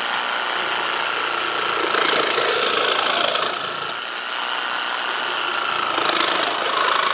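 Parkside 20V cordless jigsaw/sabre saw running with a fine blade, sawing through a piece of plastic: a steady buzzing from the reciprocating blade with a high motor whine.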